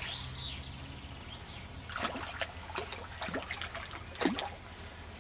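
A hooked fish thrashing and splashing at the water's surface beside the bank as it is played on a fishing pole, a run of short splashes from about two seconds in.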